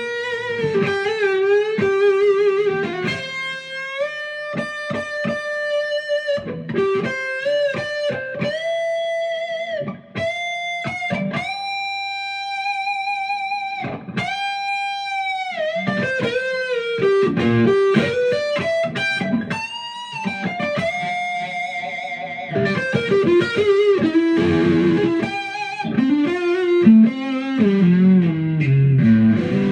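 2005 Fender Stratocaster Deluxe electric guitar playing a single-note lead melody, with string bends and vibrato on long held notes, moving to lower notes and chords near the end.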